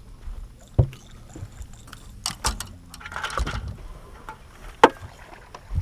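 Scattered knocks and clicks on a bass boat's deck as anglers cast, with a short rush of noise about three seconds in.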